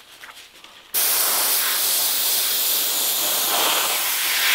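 Airbrush spraying paint: a steady hiss of air that starts suddenly about a second in.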